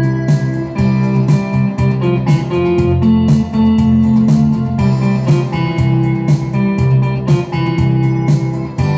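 Electronic keyboard playing a tune over a steady-beat accompaniment through an external loudspeaker.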